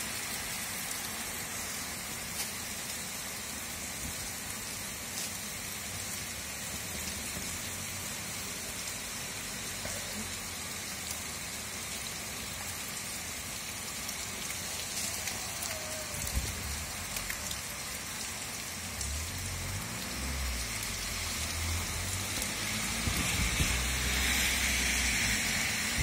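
Heavy rain pouring steadily onto a street and paved patio, splashing on wet ground. It grows louder near the end, with low rumbles in the second half.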